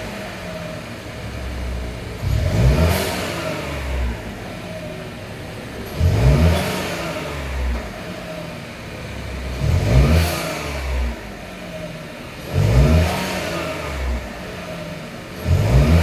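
Turbocharged 1.3-litre three-cylinder engine of a Buick Encore GX or Chevrolet Trailblazer, breathing through an aftermarket K&N air filter, revved about five times at regular intervals. Each rev climbs in pitch and then falls back toward idle.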